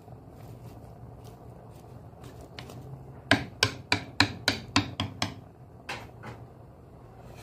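A cooking utensil knocking against the stew pot while the hare and vegetables are turned: a quick run of about eight sharp knocks, about four a second, then one more.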